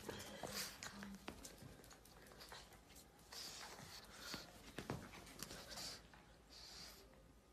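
Faint sounds of a pug playing with a plush toy on a wooden parquet floor: scattered light clicks and scuffs with short hissy rustles.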